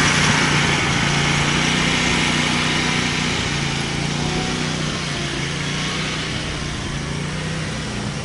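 Exmark mower's Predator 670 V-twin engine running steadily under load as the mower drives flat out, blades disengaged, on a top-speed run.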